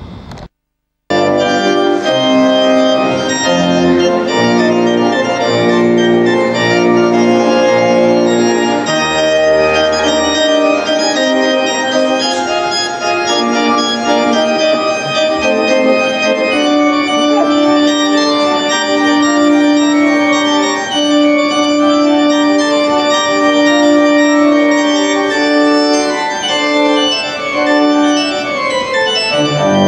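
Organ music of slow, held chords, starting suddenly about a second in after a brief silence. Deep bass notes sound under the first part, and a long held note carries through the later part.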